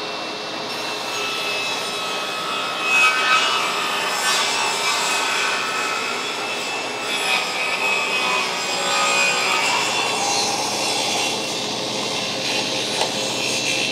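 Shopsmith table saw ripping a board on its tilted table: the blade cuts through the wood with a steady rasping noise, loudest in the first half, then eases about ten seconds in as the cut ends and the blade runs free. The stock pinches the blade more than it should during the cut.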